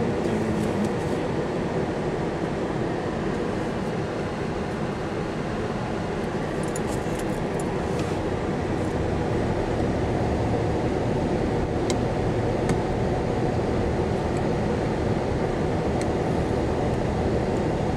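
Steady vehicle running noise, a constant rumble of engine and road, with a few faint clicks.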